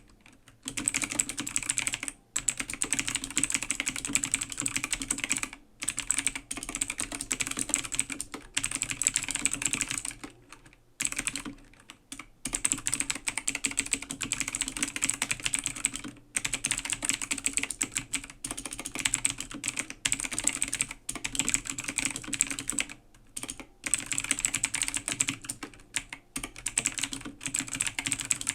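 Rapid typing on an A2 AG0302 full-size mechanical gaming keyboard with clicky blue switches: a dense stream of sharp key clicks, broken by brief pauses every few seconds.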